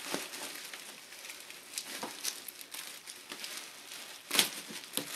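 Packaging rustling and crinkling as a box is opened and unpacked by hand, in scattered soft handling noises with a louder rustle about four seconds in.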